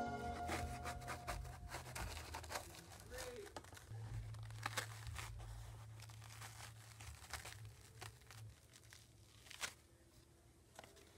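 Faint crackling, rustling and scattered small clicks of a dried sheet of handmade recycled paper being handled and lifted off a wire screen frame.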